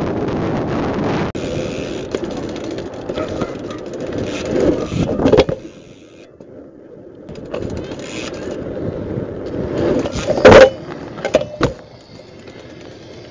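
Wind and road noise from a car drive for about the first second, then a BMX bike ridden on pavement: tyres rolling, with loud clattering knocks about five seconds in and a sharp, very loud bang about ten and a half seconds in followed by a few smaller knocks.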